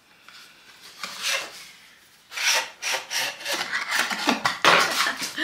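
Cardboard packaging rubbing and scraping as a glass perfume bottle is worked out of its snug box: one short rub about a second in, then a run of rapid scraping strokes from a little after two seconds.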